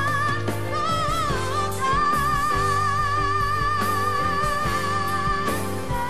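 Female singer belting a ballad live with a band. After a short wavering phrase she holds one long high note with vibrato from about two seconds in until near the end.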